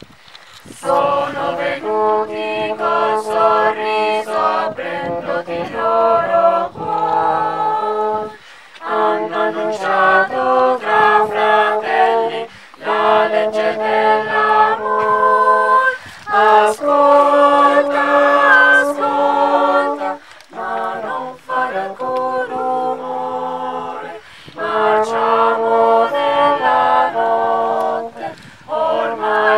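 A mixed youth choir singing in parts, holding long notes in phrases of a few seconds with short breaks between them.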